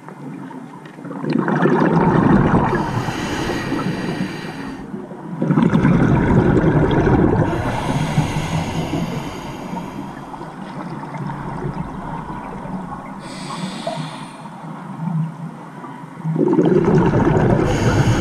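Scuba diver's regulator breathing underwater: exhaled bubbles rumble and gurgle in three long bursts, about a second in, about five seconds in and near the end, with a quieter bubbling rumble between.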